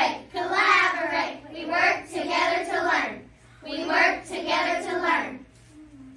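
A class of young children singing a short chant together in unison, in several phrases that stop about five and a half seconds in.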